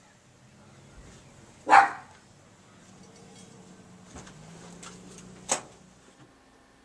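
A dog barking once, a single short loud bark about two seconds in, followed later by a sharp click.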